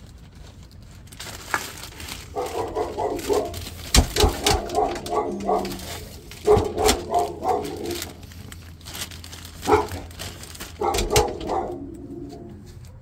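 A dog barking in several bursts of quick barks, with a few sharp knocks among them.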